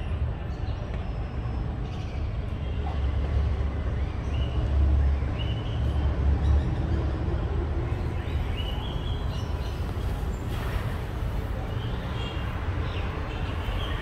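City street noise: a steady traffic rumble, with short high chirps now and then and a brief hiss about ten seconds in.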